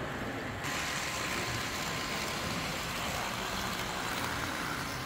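Model train running on a layout over the steady background noise of an exhibition hall; a thin steady whine and a brighter hiss come in suddenly about half a second in and hold.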